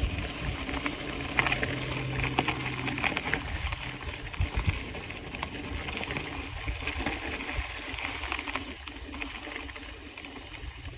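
Mountain bike rolling along a dirt trail: a steady crunch of tyres on gravel with scattered small clicks and rattles.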